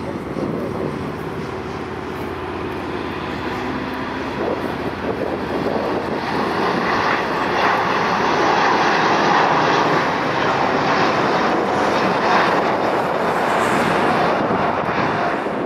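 Wide-body jet airliner's engines passing close by: a steady jet noise with a faint whine in it that builds over the first half and then stays loud.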